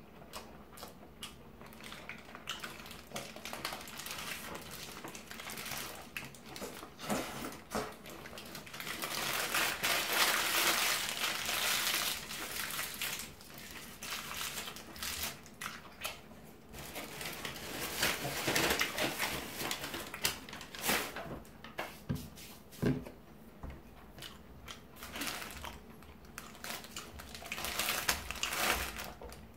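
Close-up eating sounds: chewing a bulgogi burger while its paper wrapper and a paper napkin crinkle. The loudest rustling comes about ten seconds in and again just before twenty seconds.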